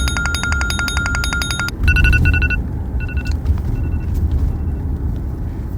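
Electronic phone ringtone played through a speaker: a rapid buzzing trill lasting under two seconds, then a few short two-tone beeps that grow fainter, over a low rumble.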